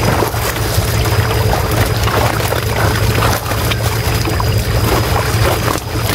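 Tilapia thrashing and splashing in shallow water crowded inside a seine net as they are grabbed by hand, a quick patter of splashes over a steady low drone.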